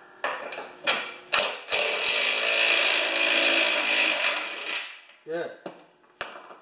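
Cordless power tool driving a half-inch socket on a bolt of a snowblower's auger housing: a few short bursts, then one steady run of about three seconds that stops near five seconds in. The bolt does not come loose, because it has been cut off.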